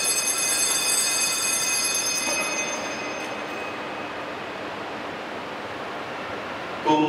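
Altar bells rung by the server at the elevation of the host, a cluster of high ringing tones that fade out about three seconds in. A choir starts singing right at the end.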